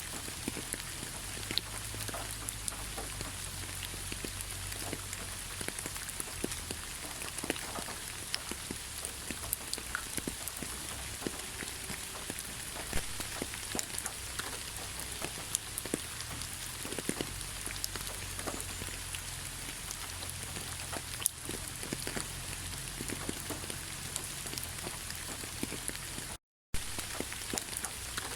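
Heavy rain falling steadily, a dense even hiss with many separate drop hits clicking through it. The sound cuts out to silence for a split second about two seconds before the end.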